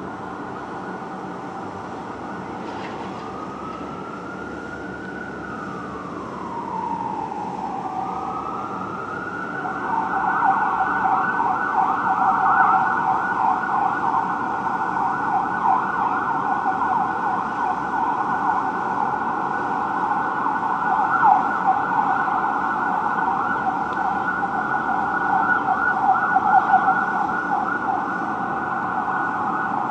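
Fire truck electronic siren: a slow wail that rises and falls once, then about ten seconds in switches to a fast yelp that carries on, over a low steady traffic rumble.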